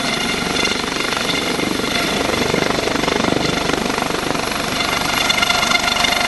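Military helicopter running close by: a steady, fast rotor chop with a high, steady whine over it.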